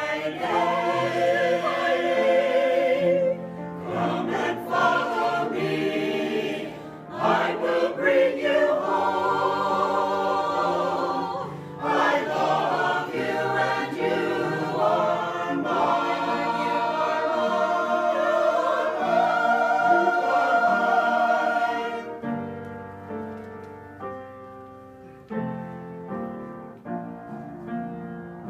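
A choir singing a slow gospel-style song, with vibrato in the voices. The voices stop about 22 seconds in, leaving softer piano notes ringing on.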